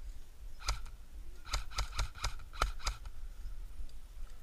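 Airsoft guns firing single shots: one sharp crack a little under a second in, then an irregular string of about six shots in the middle.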